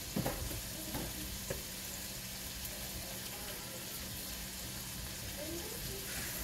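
Smoked sausage slices with onions, green onions and garlic sizzling steadily in oil in a skillet, browning over low heat, with a few sharp clicks in the first second and a half.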